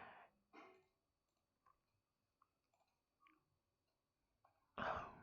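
Near silence: room tone with a few faint clicks. About five seconds in comes a loud breath out, like a sigh.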